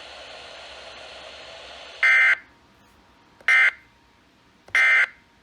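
NOAA Weather Radio SAME end-of-message (EOM) data bursts, the coded sign-off that closes the broadcast. Three short, shrill electronic buzzes come a little over a second apart. They follow about two seconds of steady radio hiss.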